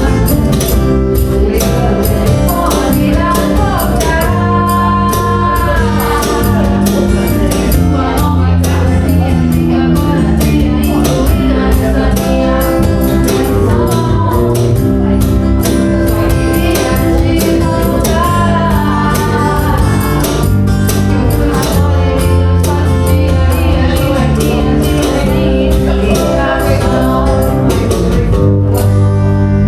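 A song sung by a lead voice over a backing of instruments with a steady percussion beat.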